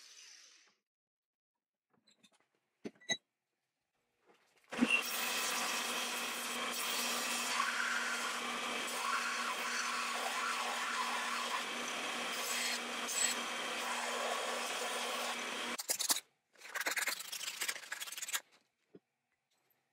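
Bench belt sander running while a small steel part is held against the abrasive belt, grinding with a steady hiss over the motor's low hum for about eleven seconds. It stops briefly, then grinds again in a shorter second pass of about two seconds.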